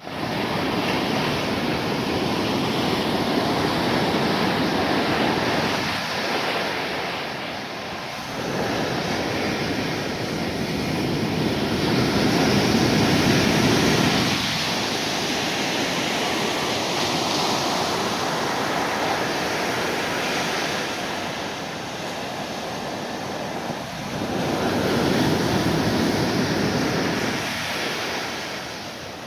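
Storm surf breaking on a beach at night: a continuous rushing wash of waves that swells and eases in surges every several seconds.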